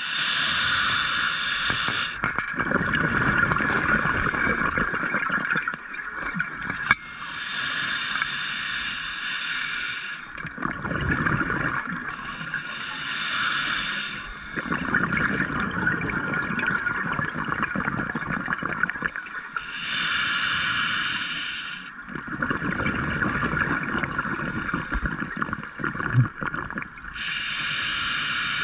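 Scuba diver's regulator breathing underwater: slow, regular breaths, each inhale followed by a gurgling gush of exhaled bubbles, about five breaths over a steady hiss.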